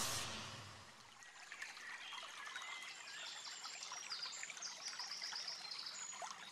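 A music track fades out in the first second. Then comes a faint ambience of trickling noise with short, high, rapidly repeated chirps.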